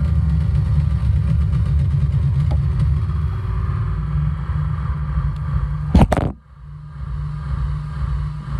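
Heavily distorted low, rumbling noise drone from a Korg Volca Sample sampler run through a Boss ODB-3 bass overdrive pedal. About six seconds in there are two loud knocks, and the drone drops in level and goes on quieter.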